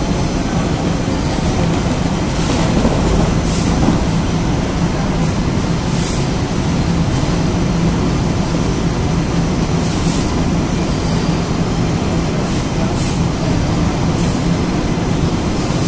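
Industrial laundry manual feeder with vacuum suction and conveyor belts, running with a steady low hum. Brief hisses come every few seconds.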